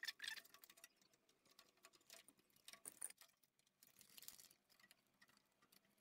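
Near silence, broken by faint scattered clicks and small handling noises as wire connectors are pushed onto a microwave control panel's terminals. The loudest clicks come right at the start and about three seconds in.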